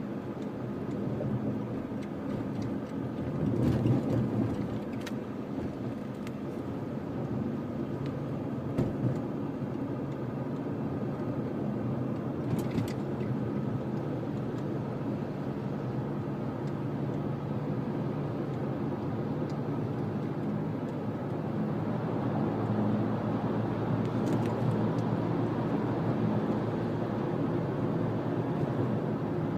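Interior noise of a clean-diesel Mitsubishi Delica D:5 on the move: a steady low hum of engine and road noise, with a few faint clicks, getting a little louder in the last third.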